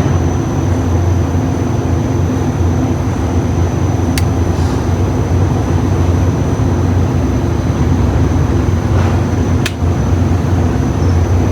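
A steady, loud low machine hum, like an idling engine, generator or air-conditioning unit, with two sharp clicks: one about four seconds in and one near the ten-second mark.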